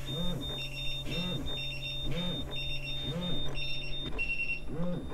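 Portable carbon monoxide detectors (Tocsin3, Sensorcon and Forensics) alarming together: overlapping high-pitched beeps repeating in a steady pattern about once a second, with a low buzzing pulse at the same pace. The alarm is triggered by a high CO concentration, with the units reading around 100 ppm and more.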